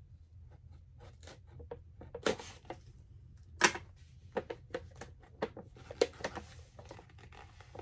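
Knife blade cutting the tape on a round blind-box package: a run of irregular short scrapes and clicks, the sharpest about two and three and a half seconds in.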